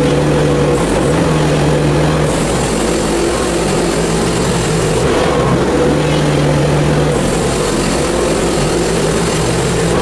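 Predator gasoline engine on a portable bandsaw mill running steadily at working speed.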